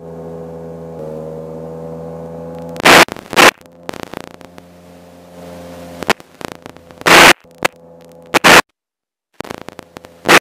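Light aircraft engine running as a steady drone, its pitch stepping up slightly about a second in. Several short, very loud noise bursts cut across it, the first about three seconds in and more near the end.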